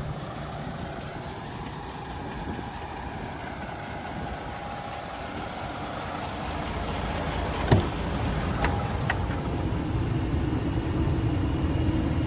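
DAF XF480's PACCAR MX-13 six-cylinder diesel idling with a steady low rumble. A little under eight seconds in comes a sharp click, then two lighter clicks, as the cab door is opened.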